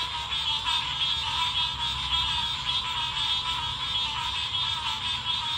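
A chorus of frogs calling: a dense, steady trilling chatter from many frogs at once, over a low rumble.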